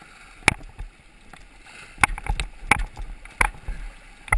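Kayak paddling through a shallow rocky riffle: about six sharp, irregularly spaced knocks and splashes from the paddle over the steady rush of the water.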